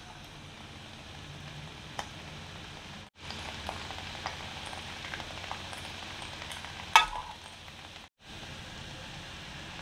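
Sauce and fish sizzling in a small pan on an electric hot plate, with a fork clicking against the pan now and then and one sharp metal clink about seven seconds in. The sound cuts out briefly twice.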